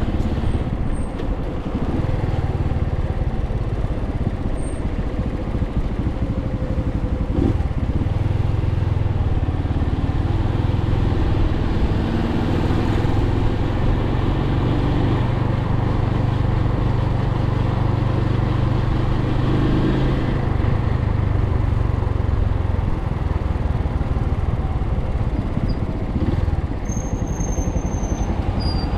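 Suzuki TU250X's single-cylinder engine running while being ridden, its note rising and falling with the throttle. Wind and road noise run underneath.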